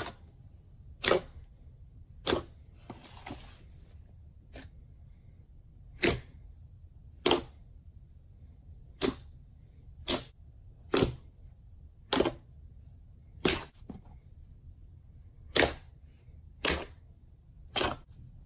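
Thick slime pressed and folded by hand, giving sharp popping clicks about once a second as pockets of trapped air burst.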